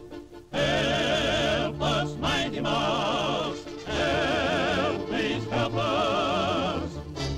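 Operatic singing with strong vibrato, a few long held phrases with short breaks between them, over background music.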